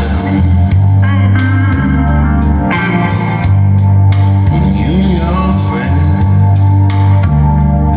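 Guitar-led rock music with a heavy, steady bass line and some sliding guitar notes.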